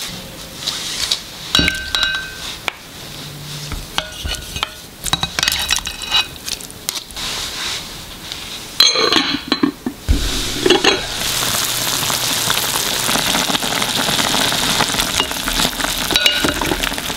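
Clinks and taps of chicken pieces and a utensil against a glass pot, then from about ten seconds in a steady sizzle of chicken braising in soy-sauce liquid, stirred with a spatula.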